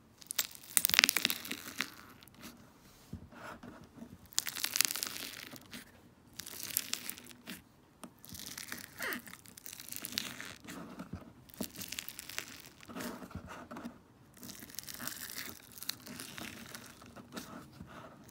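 Crunchy floam slime, foam beads packed in clear slime, crackling and popping as a fingertip presses and pokes into it. The crunches come in bursts every second or two, the loudest about a second in and again near five seconds.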